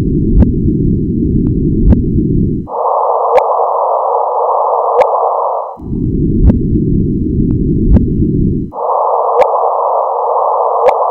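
Sonified LIGO gravitational-wave signal of two black holes merging. A low hiss carrying the brief thud of the ring-down alternates with a frequency-shifted, higher hiss in which the chirp is heard as a whoosh of increasing frequency and amplitude. The low-then-high pair plays twice.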